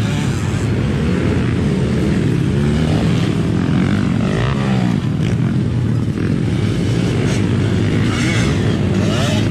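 Several motocross bikes' engines revving hard as they race and jump, their pitch repeatedly rising and falling as the riders work the throttle.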